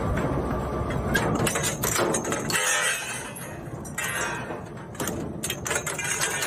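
Plastic shredder machine crunching plastic: a dense, irregular run of sharp cracks and snaps over a steady machine noise.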